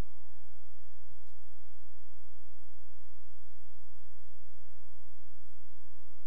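Steady, unchanging low droning hum, strongest in the deep bass, with many faint steady tones layered above it.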